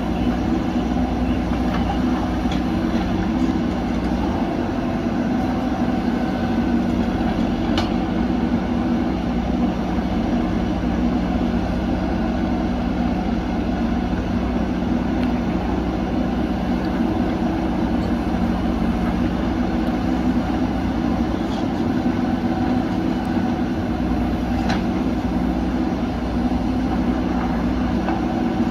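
Diesel engines of backhoe loaders running steadily under load while digging and loading dirt, with a couple of short metallic clinks.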